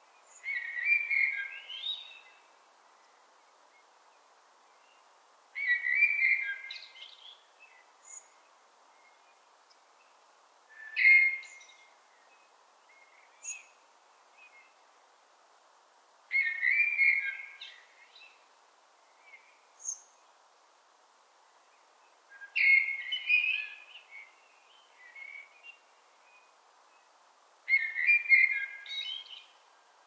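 Common blackbird (Turdus merula) singing six whistled phrases, each a second or two long and followed by fainter, higher twittering notes, about five seconds apart. A faint steady background noise runs underneath.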